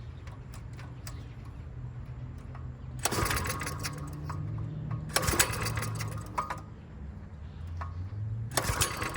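Mini bike's small single-cylinder engine, about 3 horsepower, running with its carburetor main jet freshly unclogged; it runs steadily and is revved up three times.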